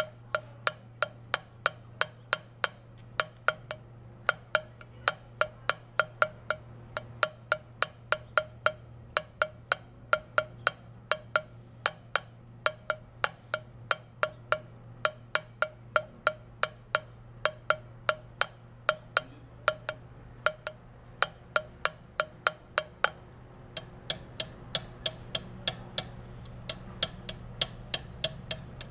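A valve being hand-lapped into its seat in a cylinder head with a wooden suction-cup lapping stick rolled between the palms: a sharp tick about twice a second, keeping an even rhythm.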